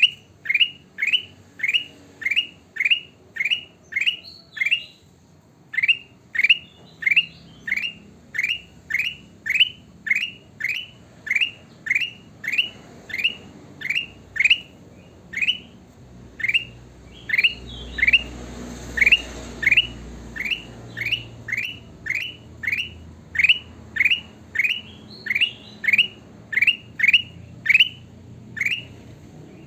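Kutilang emas bulbul calling: a short rising whistled note repeated very evenly, about one and a half times a second, with a couple of brief pauses.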